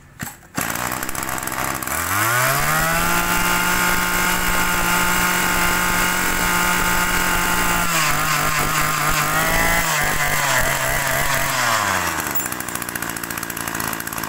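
Small two-stroke brush-cutter engine catching about half a second in and idling briefly. Around 2 s its speed rises to a steady high-rpm run, then eases slightly near 8 s, and around 12 s it drops back to a fast idle.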